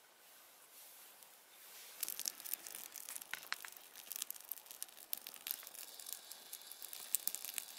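Small tinder fire of birch bark and paper catching and crackling. Faint at first, then from about two seconds in a dense run of sharp snaps and pops as the flames take hold.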